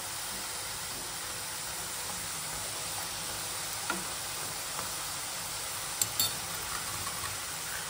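Rice-flour murukulu deep-frying in hot oil on medium flame: a steady sizzle, with a few light clicks about four and six seconds in.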